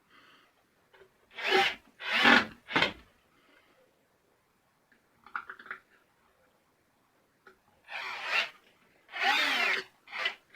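Cordless drill-driver running in short bursts, three bursts and then three more after a pause, its motor pitch rising and falling: screws being driven into the drainage pump housing.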